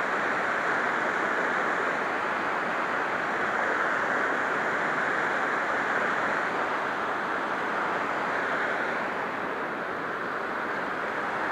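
Steady rush of the Little Kern River's cascades pouring through the granite potholes of the Seven Teacups, an even hiss of falling water that eases slightly near the end.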